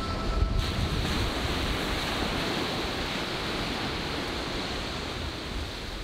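Ocean surf washing onto a sandy beach: a steady hiss of breaking waves, with wind rumbling on the microphone.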